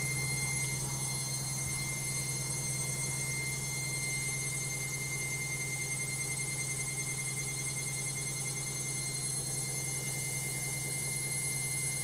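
Logik front-loading washing machine spinning at a steady speed: a low hum with thin, high-pitched whining tones over it, a spin noisy enough for the owner to film.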